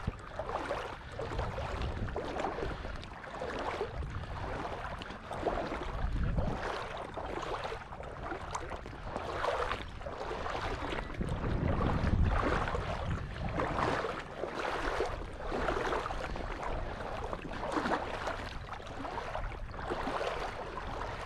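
Someone wading through shallow marsh water, each step a sloshing splash, at about one step a second.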